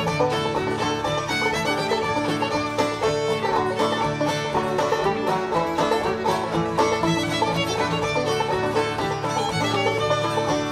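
Background music in a bluegrass style, banjo and fiddle playing together at a steady level.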